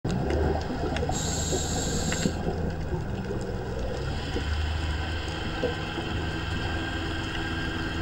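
Scuba regulator breathing heard underwater: a hiss of inhaled air beginning about a second in and lasting about a second, over a low bubbling rumble of exhaled air bubbles.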